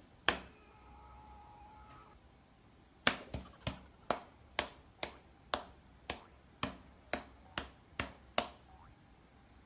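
A regular series of sharp taps or clicks, a little over two a second, running for about five seconds from about three seconds in, with one lone click near the start.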